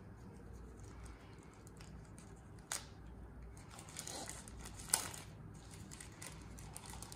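Handling noise of a soft protective wrap being peeled off a boxed accessory: light rustling and crinkling, with two sharp clicks about three and five seconds in, the second the louder.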